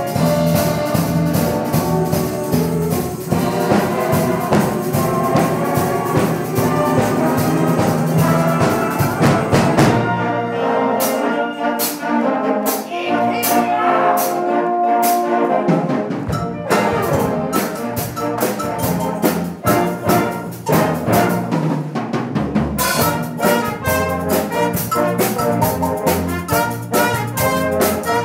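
A youth wind orchestra of brass, saxophones, clarinets and flutes, with drum kit and percussion, playing an upbeat piece live. About ten seconds in, the bass and drums drop away for several seconds, leaving mostly the winds, and the full band with drums comes back in about two-thirds of the way through.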